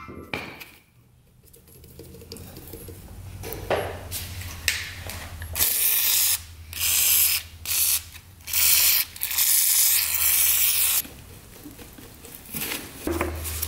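Ratchet wrench clicking in about five short bursts, half a second to a second and a half each, backing off cylinder head nuts. A low steady hum runs underneath.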